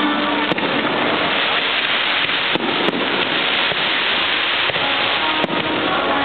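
Large fireworks display going off: a dense, continuous crackle of shells and comets, with a few sharp bangs of bursting shells across it.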